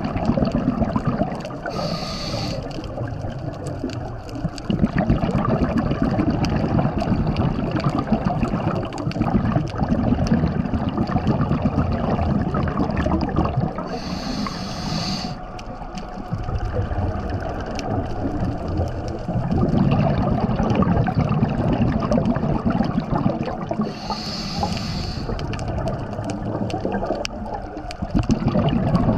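Scuba diver breathing through a regulator, heard underwater: three short inhalation hisses about ten seconds apart, with the low bubbling rumble of exhaled air between them.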